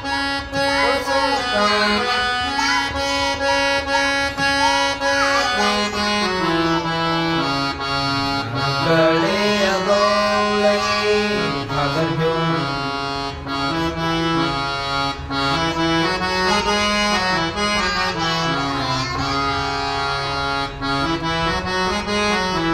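Instrumental interlude of Marathi devotional folk music: a harmonium plays a stepping melody of held, reedy notes over steady hand-drum strokes.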